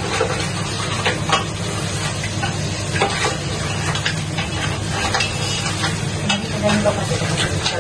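Halved crabs frying in butter with garlic and onion, sizzling steadily while being stirred in the pan, with scattered clicks of the utensil against the pan. A steady low hum runs underneath.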